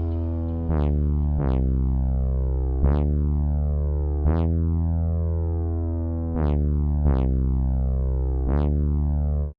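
Electronic synthesizer drone: a sustained low bass note with a dense, buzzy overtone stack, its filter swept sharply up and back down seven times at uneven intervals. It cuts off abruptly at the end.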